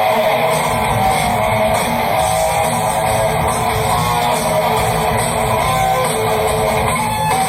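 Live heavy-metal band playing, electric guitar to the fore over bass.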